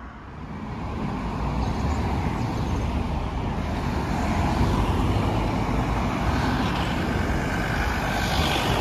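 Road traffic: cars driving past on a village street, with a steady engine and tyre rumble that builds over the first second or so and then holds.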